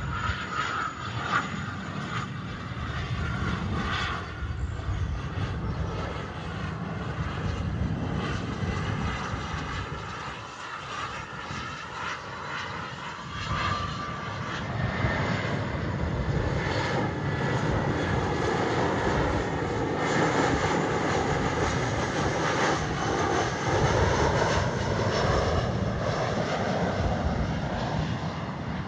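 Jet airliner's engines running as it moves past, a continuous rumble with a faint whine in the first half, the noise growing louder from about halfway in.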